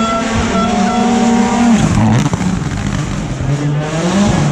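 Rally car engine held at a steady pitch, then the revs drop sharply about two seconds in, as if braking and shifting down, and climb again as the car accelerates away, with some tyre noise.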